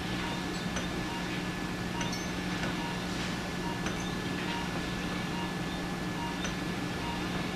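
Operating-room equipment hum with a steady high tone, scattered through with light, short metallic clinks and tinks from surgical instruments.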